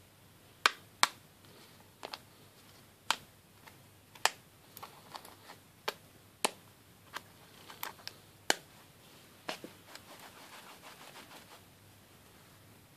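Small steel screwdriver bits clicking onto a magnetic wristband one at a time: about a dozen sharp, irregularly spaced clicks. Softer rustling follows about ten seconds in.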